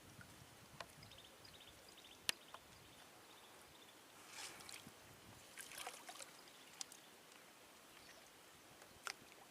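Near silence: a faint steady hiss with a few sharp clicks and two brief high splashy rustles.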